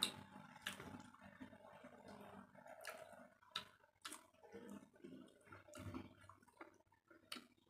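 Faint chewing of a mouthful of rice, close to a clip-on microphone, with several sharp wet mouth clicks and smacks spaced irregularly.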